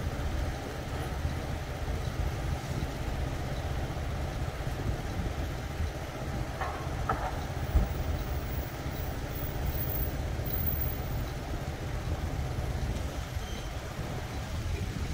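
Street ambience: a steady low rumble of traffic, with a short knock about halfway through and a couple of faint squeaks just before it.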